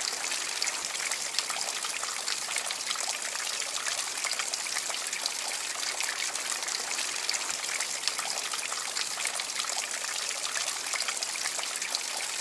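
Many thin streams of water trickling and splashing from the water-fed leaves of a copper tree water feature: a steady hiss with a constant patter of small splashes.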